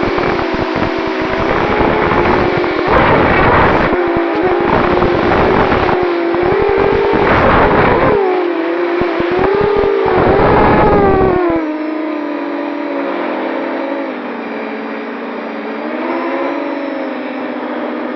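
FPV quadcopter's motors and propellers whining, the pitch rising and falling with the throttle, with rumbling gusts of wind on the microphone. About twelve seconds in the rumbling stops, and the whine drops a little in pitch and runs steadier.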